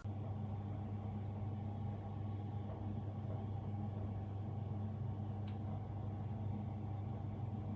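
Comfee' KWH-TD602E-W compact dishwasher running with a steady low hum.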